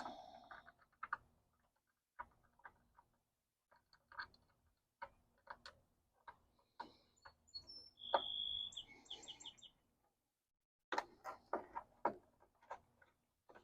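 Scattered light clicks and taps of small metal parts being handled while a thin nut is worked onto an ignition switch. A bird chirps about eight seconds in: one short high note, then a quick run of notes.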